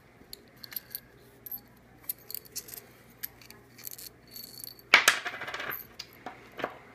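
Small steel bolts and washers clicking and clinking as they are handled and a lock washer and flat washer are slipped onto a bolt, with a louder jingling rattle of metal hardware about five seconds in.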